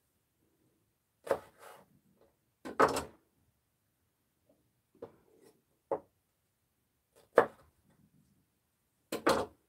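Kitchen knife cutting through food and knocking on a wooden cutting board, in sharp irregular strikes, some single and some in quick pairs.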